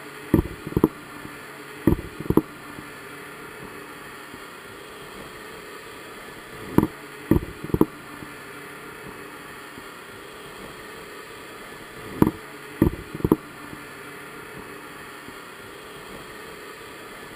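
Dull knocks in quick clusters of two or three, repeating about every five seconds, over a steady hiss of water, heard through an underwater camera's housing as it sits among the crab trap's line and cage.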